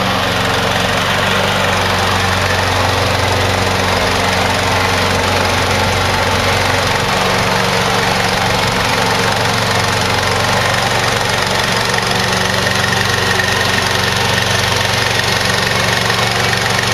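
Gas engine of a brand-new Hybrid Goat 22T remote-control slope mower running steadily, just started from the remote control.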